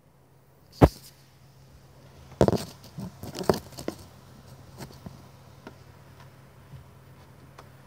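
Handling noise from a smartphone being gripped and set in place: a sharp knock about a second in, then a cluster of bumps and finger rubs on the phone body, with fainter clicks after, over a low steady hum.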